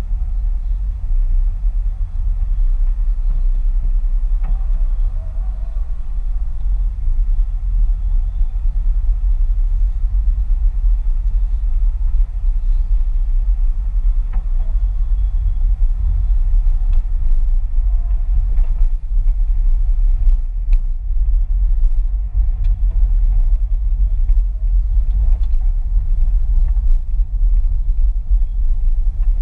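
Low, steady rumble of a car's engine and tyres heard from inside the cabin while driving slowly.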